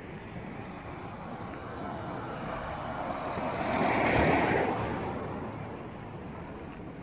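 A car passing by on the road, its noise swelling to a peak about four seconds in and then fading, over a steady low background of traffic.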